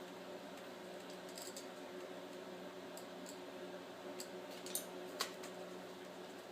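Faint scattered clicks and taps of the netbook's hard drive and its parts being handled and fitted back into the drive bay, the two sharpest nearly a second from the end. A steady low hum runs underneath.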